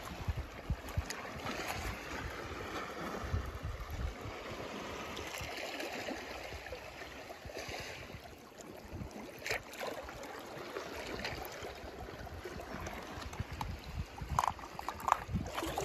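Water gently sloshing and trickling, with a few light knocks near the end.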